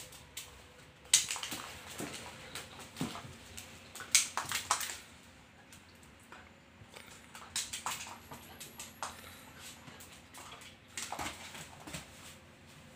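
A puppy rummaging at a plastic bag and pushing a piece of food around on the floor: clusters of crinkling, scuffing and clicking noises about a second in, around four to five seconds, around eight seconds and around eleven seconds.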